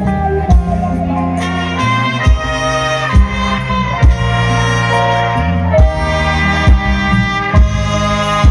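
Recorded music played loud through a large outdoor stage PA system during a sound check. It has a heavy bass drum hitting about once a second under a steady bass line and a sustained melody.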